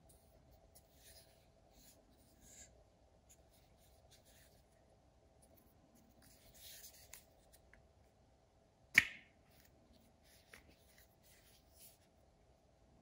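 Hands handling a Wera Tool-Check Plus plastic bit-and-socket case: faint rubbing and small clicks of plastic and metal bits, with one sharp loud click of the case about two-thirds of the way through and a couple of lighter clicks after it.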